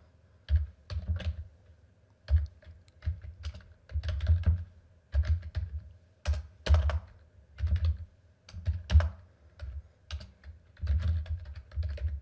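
Typing on a computer keyboard: about a dozen short runs of quick keystroke clicks with brief pauses between them, each run carrying a dull low thud underneath.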